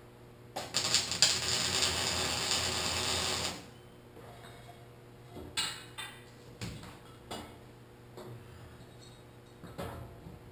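MIG welder arc crackling for about three seconds as a tack weld is laid on a steel pipe frame, followed by a few separate light knocks of steel pipe being handled.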